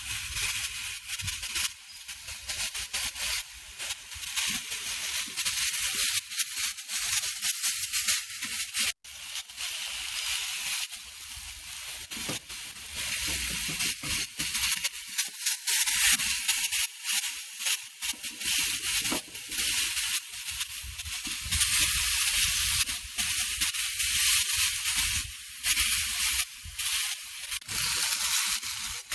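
Bone-in tandoori chicken thighs sizzling and crackling on hot grill grates over a charcoal fire, with a brief dropout about nine seconds in.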